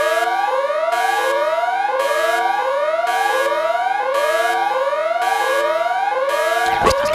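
Electronic alarm siren: a tone sweeping upward over and over, about one and a half whoops a second, over a steady electronic drone. Near the end a deep noisy rumble with a sharp crash breaks in.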